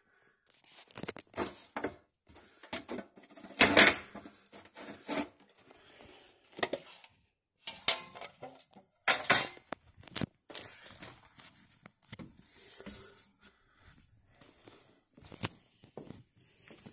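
Irregular clatter, knocks and rustling of household objects being moved and handled, with a few louder knocks about four and nine seconds in.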